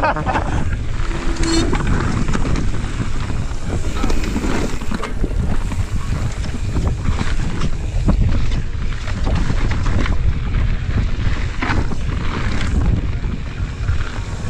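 Wind buffeting the camera microphone on a fast mountain-bike descent, over the low rumble of the tyres on the dirt trail and a steady run of knocks and rattles from the bike over the bumps.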